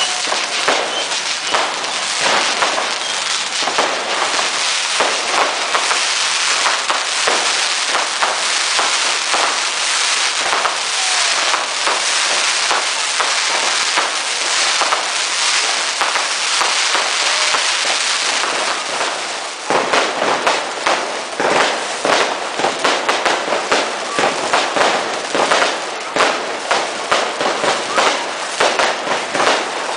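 Consumer fireworks going off in dense, continuous crackling, many small bangs overlapping. About two-thirds of the way through, it changes to a quick run of separate sharp bangs.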